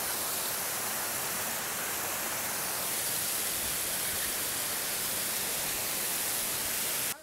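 Steady rush of the Kynrem Falls stream cascading over boulders, cutting off suddenly near the end.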